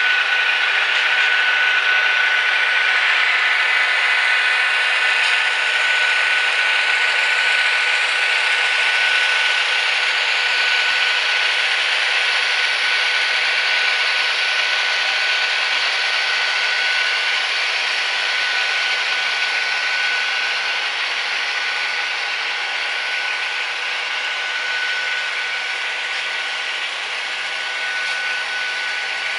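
H0-scale model train running past, a BNSF diesel locomotive hauling coal hoppers: a steady mechanical whir with a constant thin high whine, from the model's motor and wheels on the rails and its DCC sound decoder's diesel engine sound through a small speaker. It eases off slightly toward the end.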